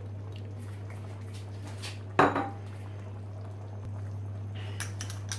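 Kitchenware clattering: one sharp knock of a dish or utensil against a pan about two seconds in, and a few lighter clicks near the end, over a steady low hum.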